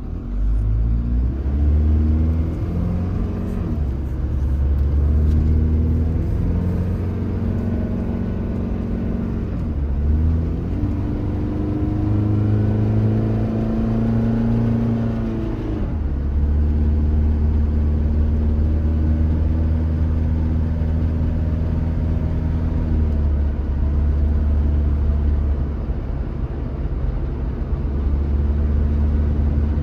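The Mitsubishi Delica L400's 4M40 four-cylinder turbo-diesel engine, heard from inside the cab, pulls away and accelerates, its pitch climbing and dropping back at three upshifts. It then runs steadily at highway cruising speed.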